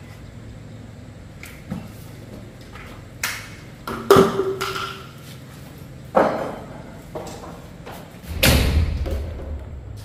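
A series of about five sharp knocks and thuds. The loudest, about four seconds in, is followed by a brief ringing ping.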